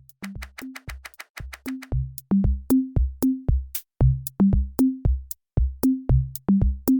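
Electronic intro music with a drum-machine beat: bass-drum thumps, short hi-hat ticks and a simple bass line.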